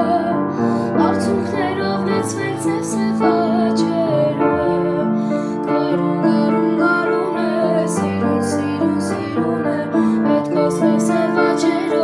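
A boy singing a song in Armenian while accompanying himself on an upright piano, playing chords and a steady accompaniment under the melody.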